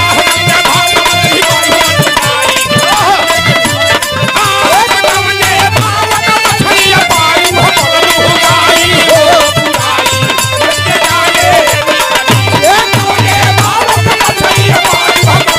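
Instrumental interlude of Bhojpuri biraha folk music: a harmonium plays held and moving notes over steady hand-drum rhythm on a dholak.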